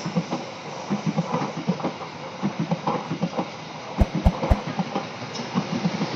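Train passing close by, its wheels clattering over the rail joints in a rapid, uneven rhythm, with a few heavier thumps about four seconds in.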